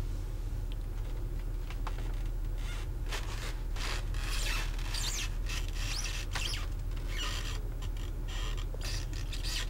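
Irregular scraping and rubbing noises, short and uneven, starting about two and a half seconds in, over a steady low hum.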